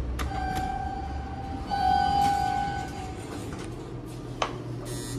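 Elevator electronic tone sounding steadily for nearly three seconds, stepping up louder about halfway through, then a single sharp click near the end.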